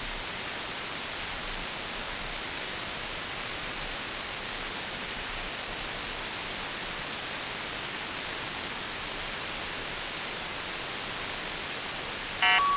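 Shortwave radio receiver on 4020 kHz giving a steady hiss of static. Near the end comes a short, loud horn-like buzz made of several stacked tones: the 'Airhorn' channel marker signal.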